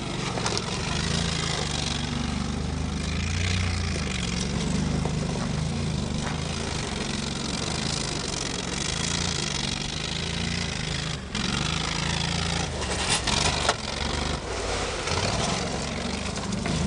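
Argo Avenger amphibious ATV's engine running steadily as the tracked vehicle crawls through shallow water and up a dirt bank. A few sharp knocks come about three-quarters of the way through.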